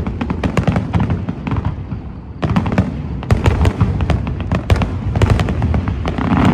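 Aerial fireworks display: a rapid barrage of shell bursts and crackling over a low rumble. The bangs ease off briefly about two seconds in, then come thick again.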